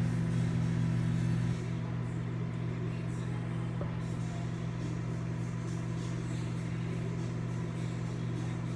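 Microwave oven running with a steady low electrical hum; the hum drops in level about one and a half seconds in and carries on more quietly.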